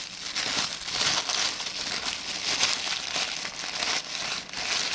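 White tissue paper crinkling and rustling continuously as hands unwrap a baseball from it, with many small crackles.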